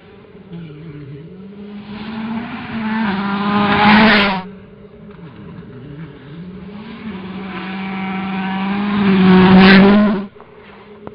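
Volkswagen Polo R WRC rally car's turbocharged four-cylinder engine at full throttle, growing steadily louder as the car approaches, then cutting off suddenly; this happens twice, the second time louder.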